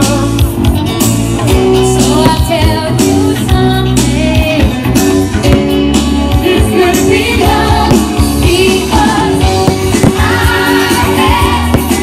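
Loud pop-rock song with singing, guitar and a steady beat.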